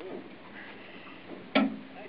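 A single sharp knock about one and a half seconds in, with a brief low ring after it.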